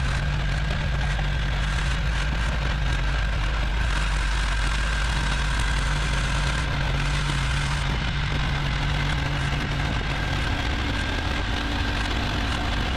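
Chainsaw mill running steadily at full throttle, its chain rip-cutting lengthwise along the grain of a large oak log.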